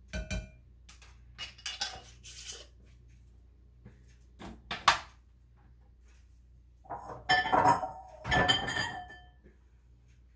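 Kitchenware being handled: small taps and clinks of a measuring spoon and spice jar against a glass mixing bowl, a sharp knock about five seconds in, then a louder clatter of dishes with ringing clinks about seven seconds in as a bowl is picked up.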